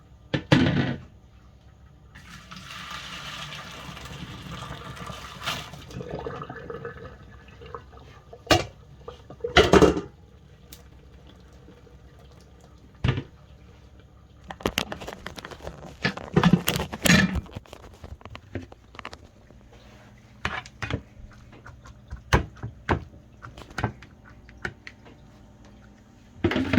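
Water rushing into a kitchen sink for about four seconds, followed by scattered knocks and clatters of pots and utensils being handled.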